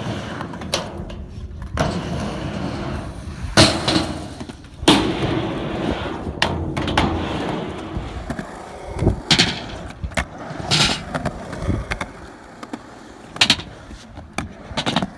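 A steady rough noise broken by irregular sharp knocks and clatter, the loudest about three and a half and five seconds in.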